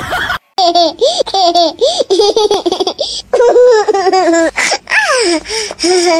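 Kitten crying out in a quick run of short, high, squeaky calls like "hey, hey", several a second, with brief breaks between runs.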